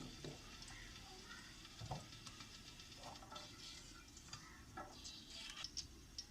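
Faint scattered crackling of ghee heating in a kadhai over a fire, the small pops coming more often near the end as the ghee gets hot.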